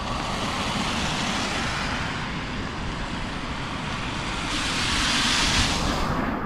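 Cars driving past on a wet street, their tyres hissing through the water on the road; the closest and loudest pass comes about five seconds in.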